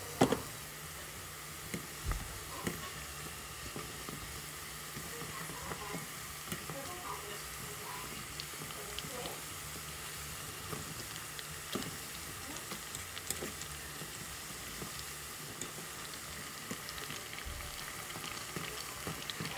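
Jamaican festival dumplings frying in oil in a covered pot: a steady sizzle with scattered small pops and crackles. A single sharp knock comes just after the start.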